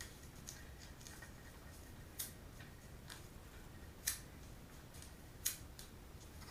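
Faint crinkling of paper-wrapped fireworks fuse being handled and twisted together by hand, with a few sharp clicks, three louder ones spaced about a second and a half to two seconds apart.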